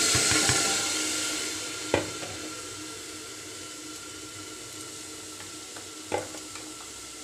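Soaked chickpeas tipped into a metal pressure cooker: a rushing hiss that fades over the first few seconds. Two sharp knocks follow, one about two seconds in and one near the end.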